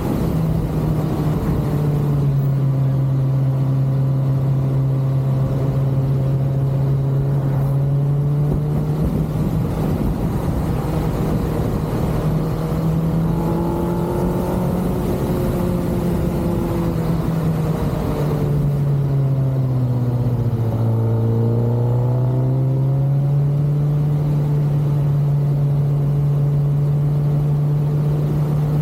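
Kawasaki ZX6R's inline-four engine running at a steady cruise, with wind and road noise. Its note drops for a couple of seconds about two-thirds of the way in, then climbs back to a steady pitch.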